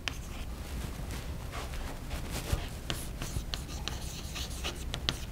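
Chalk writing on a blackboard: a string of short, irregular scratches and taps as the chalk forms letters.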